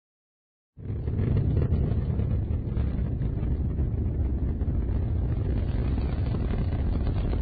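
Titan II launch vehicle's first-stage rocket engines at liftoff, a loud steady low rumble that starts suddenly about a second in.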